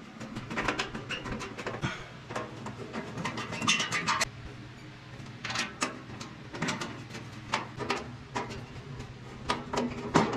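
Irregular metallic clicks, taps and clinks of screws, washers and sheet-metal panels being handled while a pellet smoker is put together, a few of them ringing briefly, over a steady low hum.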